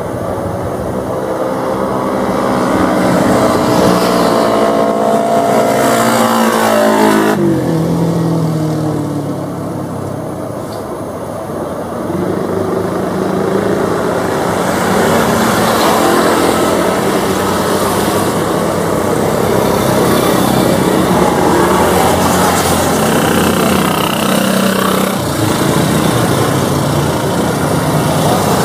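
Jet engines of a Lion Air Boeing 737 running loud as the airliner moves along the runway, with a whine that bends in pitch during the first several seconds and changes abruptly about seven seconds in.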